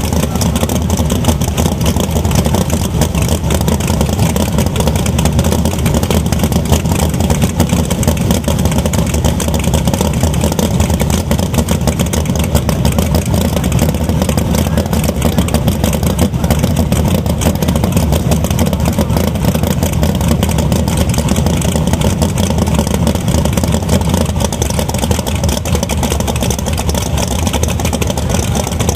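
Nitrous Pro Mod drag cars' V8 engines idling loudly and steadily at the starting line before staging.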